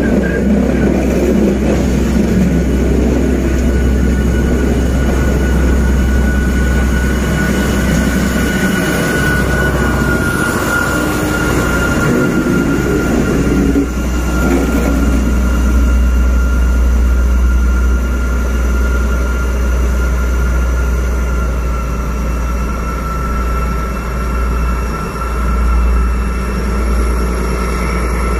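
Freight box wagons rolling past with a dense rumble of wheels on rail. The D11H diesel-hydraulic banking locomotive, working hard to push the train up a 16.2‰ grade, runs loudly with a steady high whine. The rumble gives way to a steadier engine note about halfway through as the locomotive comes by.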